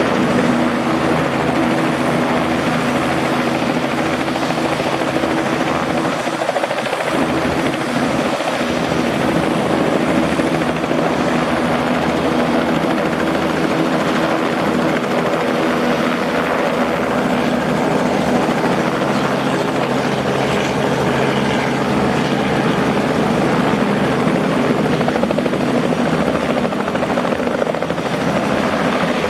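Helicopter running close by, a steady rotor and engine sound with a constant hum and no change in pitch.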